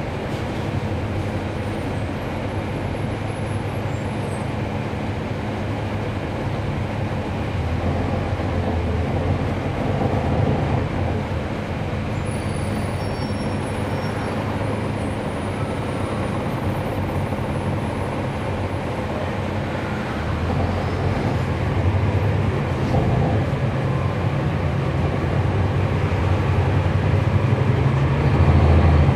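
A 2011 NABI 416.15 transit bus under way, heard from inside the cabin: its Cummins ISL9 diesel engine, driving a ZF Ecolife six-speed automatic, runs with steady road noise. The engine grows louder in swells several times, most strongly near the end.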